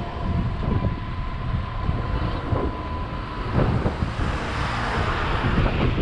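Wind rumbling on an action camera's microphone while cycling along a road. From about three and a half seconds in, a car passes close by, its tyre and road hiss swelling.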